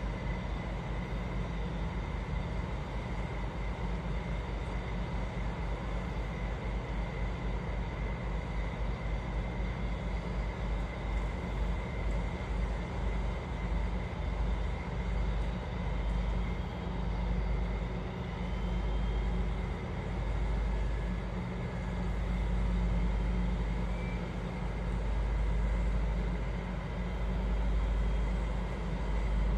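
Harbour tugboat's diesel engine running under load as it pushes against a cargo ship's hull: a deep, steady sound that swells louder in slow waves through the second half, with a faint steady whine above it.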